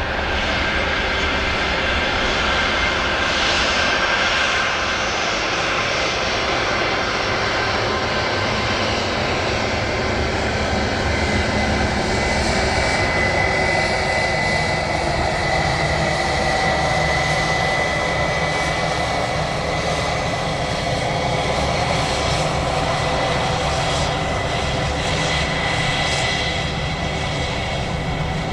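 Jet airliner engines running loud and steady, with a high whine over the rushing noise.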